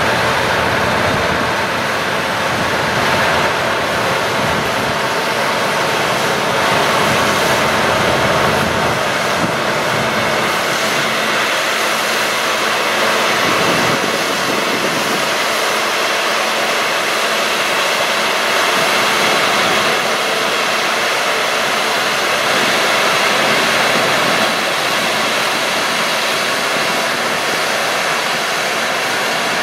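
Combine harvester running steadily at work: an even, loud rushing machine noise with faint steady tones in it. A low rumble underneath drops away about nine seconds in.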